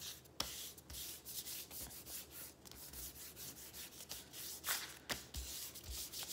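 A hand rubbing back and forth over a folded sheet of paper on a countertop, a run of dry swishing strokes with a couple of sharper ones, pressing the wet paint inside so it prints onto the other half.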